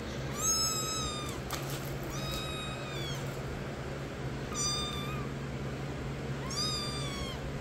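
Kitten mewing four times: thin, high-pitched mews, each under a second long, rising and then falling away at the end.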